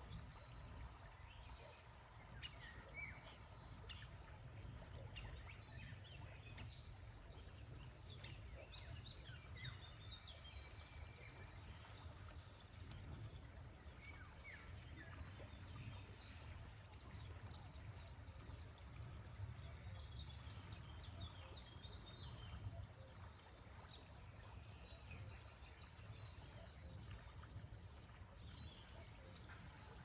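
Faint flowing river water with a low rumble, with scattered short bird chirps.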